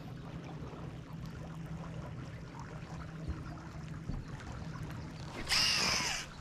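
Water trickling under a steady low hum. About five and a half seconds in comes a brief, loud hiss with a falling whistle.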